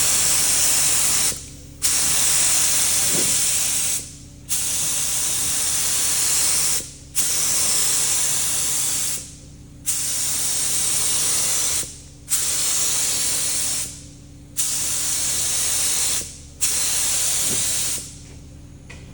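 Compressed-air paint spray gun spraying paint onto a tractor fuel tank in repeated passes: a steady hiss lasting two to three seconds each time, broken by short gaps as the trigger is let off, about eight passes, stopping about a second before the end.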